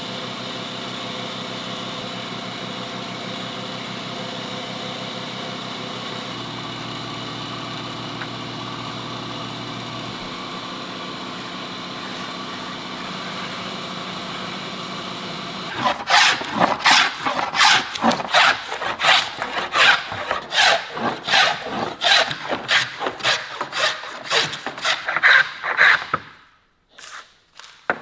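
A power tool's motor running steadily in a woodworking shop. A little past halfway it gives way to fast back-and-forth strokes of a tool on wood, about two to three a second, which stop shortly before the end.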